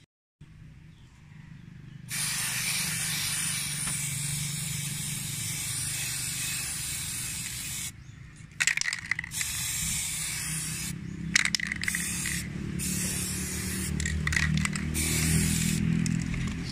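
Aerosol can of chrome spray paint hissing in long bursts, starting about two seconds in, with a few short breaks from about eight seconds on where the nozzle is let go and pressed again. A low rumble runs underneath.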